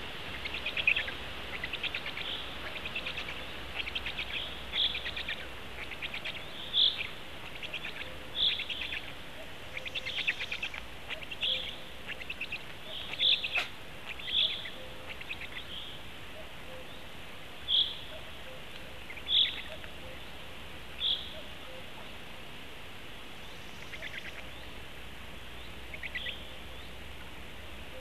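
Songbirds singing in the surrounding forest: a chorus of high trills with loud, short, clear notes repeated every second or two, thinning out in the last few seconds.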